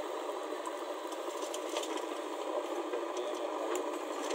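JCB backhoe loader's diesel engine running steadily while the loader works, with a few faint clicks scattered through.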